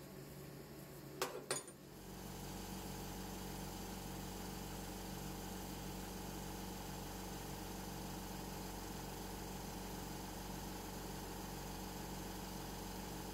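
Two quick metallic clinks close together about a second in, from the milled ER32 chuck and the steel tap jammed in it being handled. After that, a steady machine hum with a faint regular pulsing low down.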